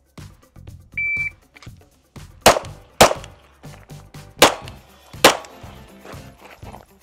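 A shot timer beeps once to start the stage, then a pistol fires four shots: two half a second apart, then two more about a second and a half later and nearly a second apart.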